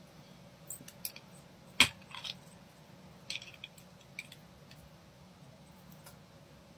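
Small sharp metallic clicks and ticks from handling metal watch bracelet links and pins, scattered irregularly, with one louder click a little under two seconds in.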